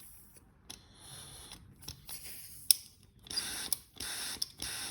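Spray gun triggered in short hissing bursts while it is flushed clean, with sharp clicks between bursts, starting about three seconds in after lighter clicking and handling. The trigger plunger, refitted with a new spring, works without lube.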